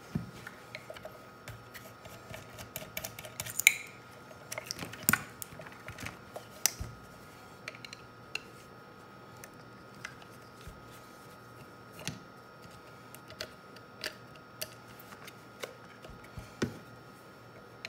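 Screwdriver and hands dismantling an Icom IC-400Pro UHF CB radio: irregular clicks, taps and light knocks as screws are undone and case parts are lifted and handled.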